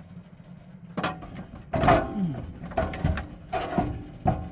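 Metal ratcheting and clanking in five short bursts, about one a second, as a transmission is worked back off a truck's engine. A steady low hum runs underneath.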